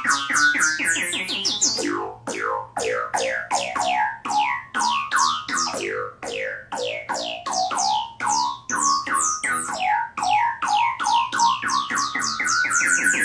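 Electronic oscilloscope music: synthesized stereo signals of the kind that draw pictures on an oscilloscope's X-Y display, played as music. A fast run of short synth notes, about four a second, each falling in pitch, over slowly rising sweeps.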